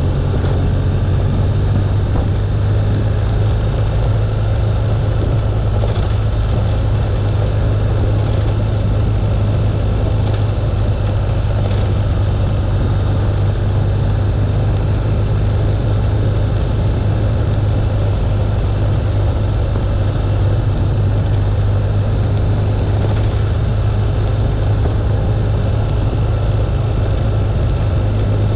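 BMW R1200GS boxer twin engine running evenly at a steady cruise, mixed with a steady low rumble of wind and road noise. There are no gear changes or revs; the sound stays level throughout.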